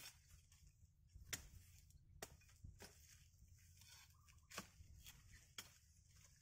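Faint, irregular snaps and crackles of twigs and dry leaves as people push through dense brush, a sharp crack every second or so over a low, steady rumble.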